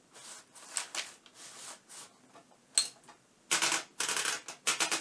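Underwood office typewriter mechanism being worked by hand: faint handling, a single sharp click almost three seconds in, then bursts of rapid mechanical clicking.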